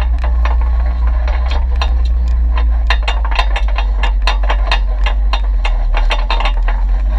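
Off-road vehicle crawling down a rocky trail: a steady low drivetrain rumble under frequent sharp clicks, knocks and rattles as it jolts over loose rock, busier from about three seconds in.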